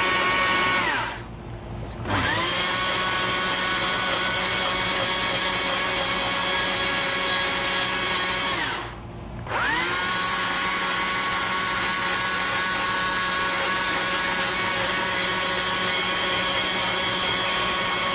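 Carving chainsaw running at full throttle while undercutting a wood carving, a steady high pitch. It is let off to idle twice, about a second in and again about nine seconds in, its pitch falling, then revs straight back up.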